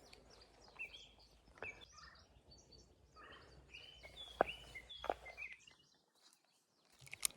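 Faint bird calls: scattered short chirps, with a few light clicks among them. The sound cuts out completely for about a second near the end.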